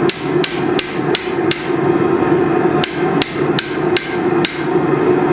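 Blacksmith's hand hammer striking steel on an anvil, with ringing metallic blows in two runs of five, about three a second, split by a short pause. A steady drone runs underneath.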